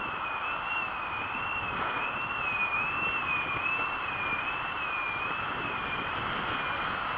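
Mountain bike rolling on tarmac under pedal power: a steady high whine that wavers up and down in pitch about once a second, over a hiss of tyre and wind noise.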